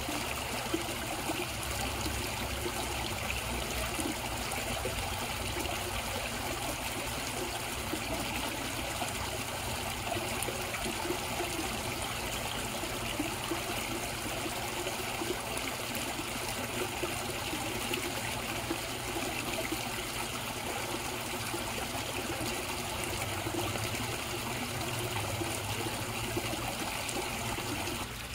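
Water trickling and splashing steadily into a koi pond.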